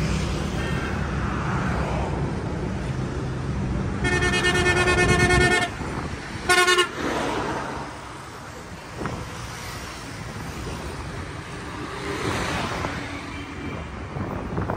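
Road traffic with vehicles passing, and a vehicle horn blowing: one long blast of about a second and a half about four seconds in, then a short toot a second later.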